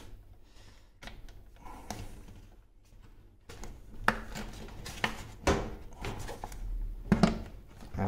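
Plastic clicks, knocks and scraping as a dishwasher's plastic control-module housing is prised past its retaining tab with a metal blade and pushed free, with a few sharp clicks in the second half.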